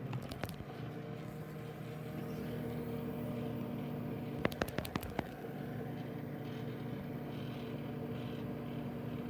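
Microwave oven running with a steady electrical hum, broken by a couple of sharp clicks about half a second in and a quick cluster of clicks around the middle.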